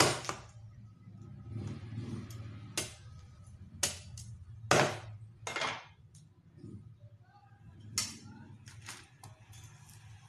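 A steel cleaver chopping raw meat on a wooden cutting board: about half a dozen sharp chops at uneven intervals, the loudest right at the start and about halfway through, over a low steady hum.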